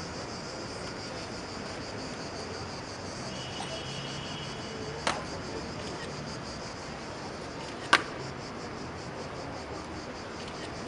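Cicadas buzzing in a steady, finely pulsing drone, with two sharp stamps of the Evzone guards' hobnailed tsarouchi shoes on the marble pavement about five and eight seconds in. The second stamp is the loudest sound.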